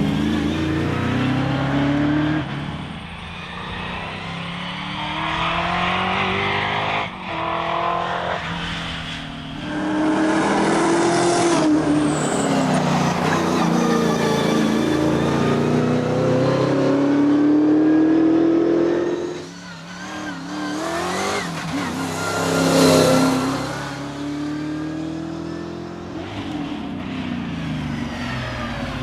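Holden Torana engine revving hard, its pitch climbing and dropping again and again, with the loudest burst about 23 seconds in.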